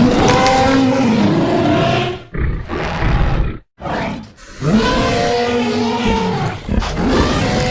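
Indoraptor roar sound effects for a made-up dinosaur: a long roar, a shorter call after it, a brief pause, then another long roar, with a further roar starting near the end. The roars waver in pitch.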